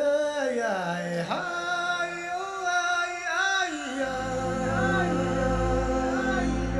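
Music: a sustained melody with sliding, voice-like notes, joined by a low steady bass about four seconds in.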